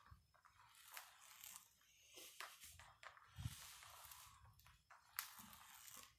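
Ab wheel rolling out and back on a concrete floor: faint gritty rolling noise that comes and goes, with a sharp click about five seconds in.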